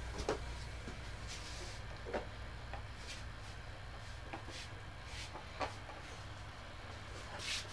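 Scattered light knocks and clicks of bamboo craft items being handled, about eight in all, with a short rustle near the end, over a low steady rumble.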